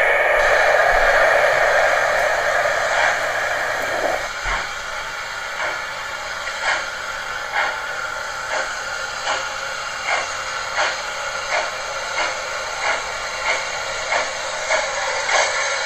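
Model railway train running on its track: a loud rush as coaches pass close by, then after about four seconds a quieter steady run with a regular click about one and a half times a second as a small tank engine draws its coaches along.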